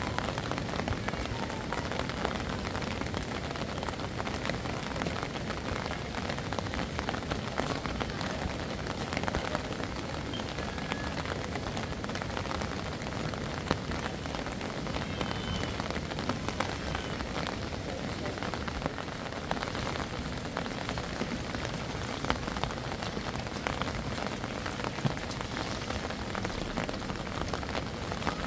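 Steady patter and splash of water, many small drops and splashes with no break.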